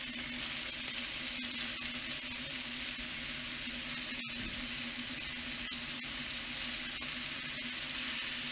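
Venison steaks and melting butter sizzling in a hot cast iron pan: a steady dense hiss with small pops. The butter foams as it hits the oil, which is near its smoke point. A steady low hum runs underneath.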